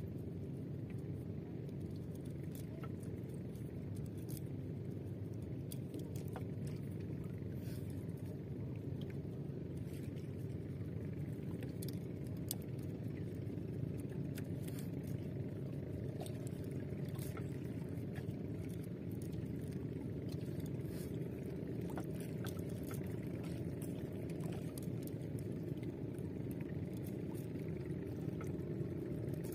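A steady low rumble on a small outrigger fishing boat, with scattered light clicks and scrapes as a longline is hauled in by hand over the side.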